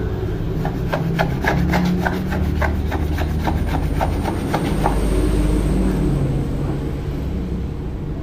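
Quick scraping strokes of one body-filler spreader's edge against another, about three a second, stripping soaked, softened body filler off the blade; the strokes stop about five seconds in. A steady low rumble runs underneath.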